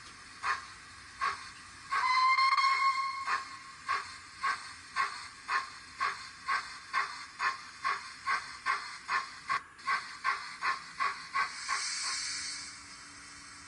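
Sound decoder of a Dapol Hawthorn Leslie model steam locomotive playing steam chuffs that quicken from about one a second to about three a second as it accelerates, with a whistle blast about 2 s in. Near the end a short burst of steam hiss, and the chuffing stops.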